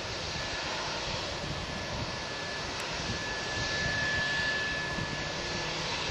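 Boeing 757-200's turbofan engines running as the airliner taxis, a steady rushing noise with a thin high whine that grows stronger about halfway through.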